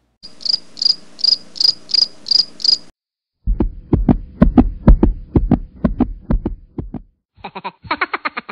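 Comedy cricket-chirp sound effect, high chirps about three a second for about three seconds, the usual 'awkward silence' gag. Then a low thumping beat, about four thumps a second, and a rapid clicking chatter near the end.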